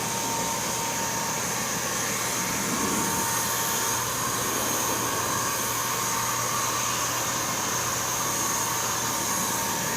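Electric paint spray gun running continuously: a steady whirring hiss with a faint high whine.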